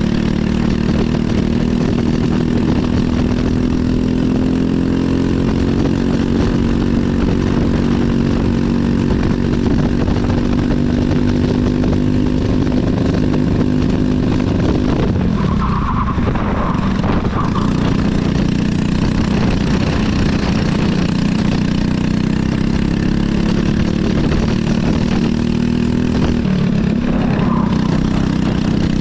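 Briggs & Stratton LO206 four-stroke single-cylinder kart engine under racing load, heard onboard. Its pitch climbs slowly down a straight, drops sharply about fifteen seconds in as the kart slows for a corner, then climbs again, with another short dip near the end.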